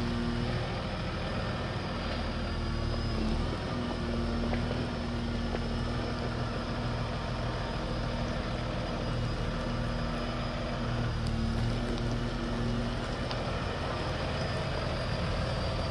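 Volvo L120H wheel loader's diesel engine running steadily as the machine turns and manoeuvres, with a steady tone over the engine that fades out near the end.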